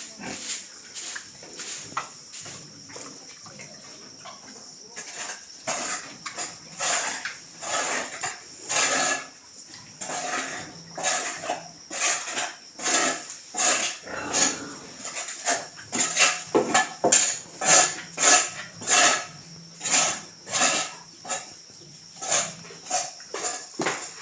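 Pigs grunting and squealing in short, irregular calls, one or two a second and growing busier in the second half, over a steady high hiss.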